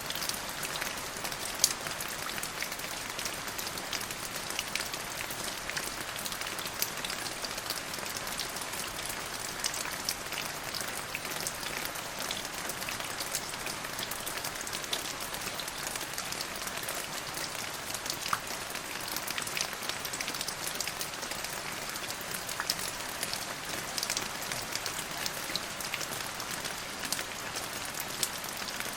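Steady rain falling, with many small sharp drop ticks through an even hiss.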